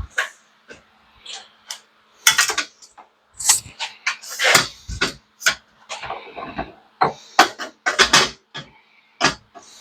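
Irregular clanks, knocks and rattles of metal parts and tools being handled and set down, over a faint steady hum.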